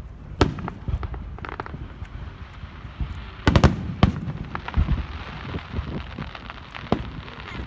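Fireworks going off: a string of sharp bangs and booms with crackling between them, the loudest cluster of bangs coming about halfway through.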